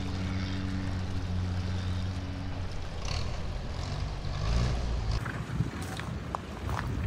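Engine running steadily at a low pitch, fading out under three seconds in, then a short rising rev with a low rumble about four seconds in.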